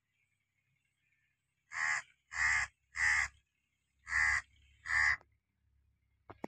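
A crow cawing five times: three caws in quick succession, a short pause, then two more. A single sharp click follows near the end.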